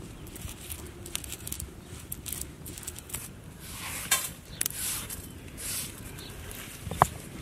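Black peppercorns being crushed with a stone roller on a stone grinding slab: gritty crunching and scraping strokes. Later the crushed pepper is swept off the stone by hand into a steel plate, and there is a sharp click near the end.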